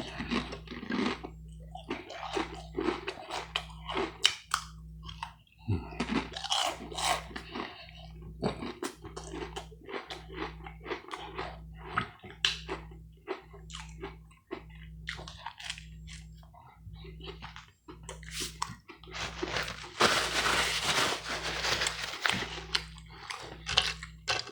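Close-miked eating: repeated crunching bites and chewing of food, with a longer stretch of dense crunchy noise about twenty seconds in.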